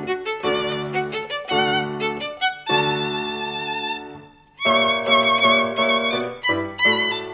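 Fiddle music playing a lively tune with wavering, vibrato notes in short phrases, breaking off briefly about four seconds in.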